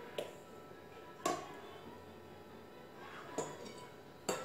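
A few short, light clinks and knocks of a stainless steel puttu maker being handled as it is filled with spoonfuls of wheat flour mix, over faint background music.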